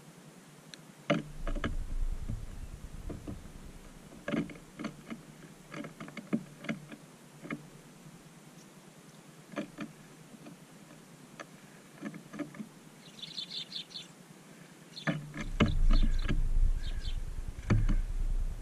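Low gusts of wind buffeting the microphone, loudest near the end, with scattered small clicks and ticks throughout. A short burst of high bird chirping comes about two-thirds of the way in.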